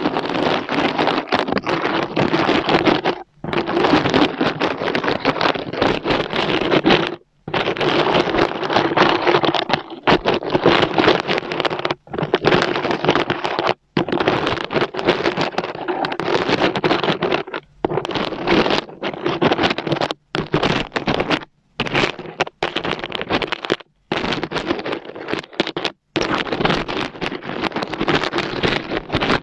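Rapid, dense knocking and tapping on small glass ampoule bottles, a close-miked run of clicks that stops dead for a moment about a dozen times.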